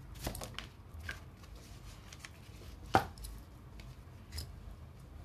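Tarot cards being handled and laid down on a table: a few light taps and clicks, with one sharper tap about three seconds in.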